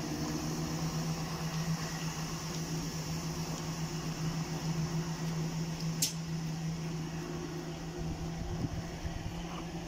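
Southern Class 171 Turbostar diesel multiple unit drawing slowly into the platform, its diesel engines giving a steady low drone. A single sharp click sounds about six seconds in.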